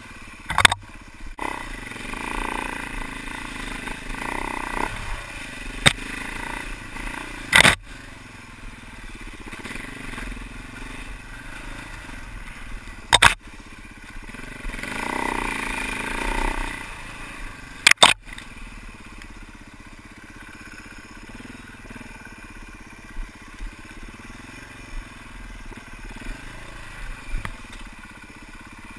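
Husaberg FE 390 four-stroke single-cylinder enduro bike engine revving up and down as it is ridden along a rough trail, with a stretch of harder revving about halfway through. Several sharp knocks cut through it along the way.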